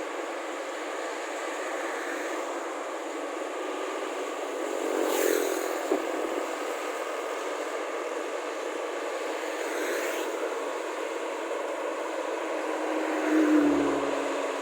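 Steady drone of a rice combine harvester's engine and machinery, with road vehicles passing, swelling about five seconds in, again around ten seconds, and near the end. A sharp click about six seconds in.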